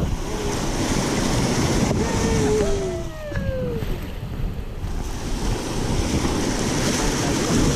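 River water rushing, with wind buffeting the microphone on a raft; a few brief voices call out about two to three seconds in.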